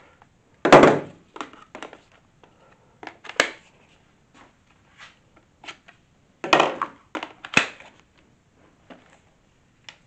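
Hard plastic parts of an Ultenic U12 Vesla cordless stick vacuum clicking and knocking as they are handled and fitted together. There is a loud knock about a second in and a few more knocks around two thirds of the way through, with light clicks between.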